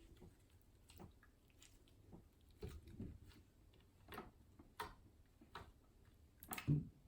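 Faint, scattered squishes and soft clicks of a stiff, stretchy slime putty being squeezed, stretched and poked by hand, with one louder squelch near the end.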